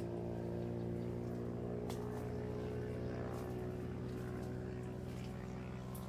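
A small engine running steadily at constant speed, with a few sharp clicks over it.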